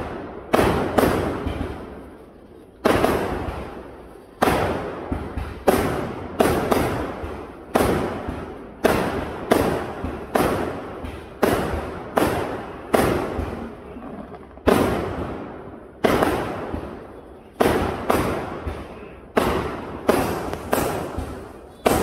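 Fireworks display: aerial shells bursting in quick succession, a sharp bang about once a second, each fading away before the next.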